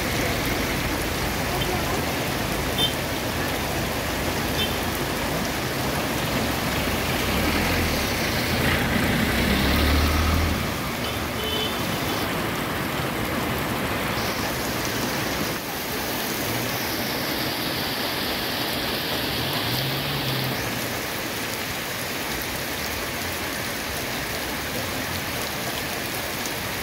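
Heavy tropical rain pouring onto a flooded paved road, a dense steady hiss of rainfall and splashing. A vehicle drives past on the wet road about ten seconds in, adding a low rumble.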